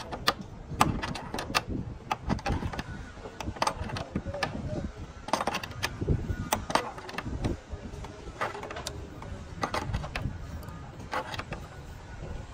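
Hand tools knocking on wood at irregular intervals, sharp taps and strikes over a low workshop rumble, with voices murmuring in the background.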